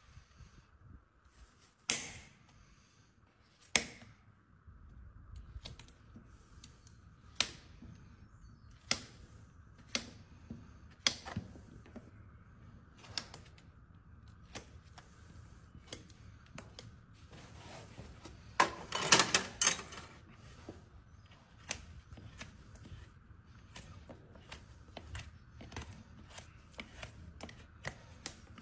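Hoof knife paring the sole and frog of a horse's hoof: single sharp scraping cuts every second or two, with a quick run of strokes about two-thirds through.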